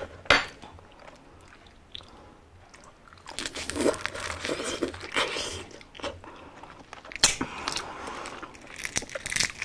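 Eating balut topped with chopped chilies: wet biting and chewing from about three seconds in, then eggshell cracking and crackling as the shell is peeled off near the end, with a few sharp clicks at the start.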